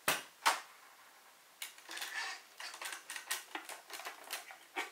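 Hard plastic clicks and light clatter from a 1/10-scale RC pickup truck's body and chassis being handled and turned over. Two sharp clicks come at the start, then a run of quicker, lighter clicks from a couple of seconds in.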